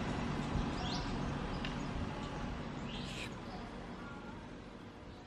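Outdoor street ambience with a low steady hum and a few short bird chirps, about a second and three seconds in. The whole sound fades out toward the end.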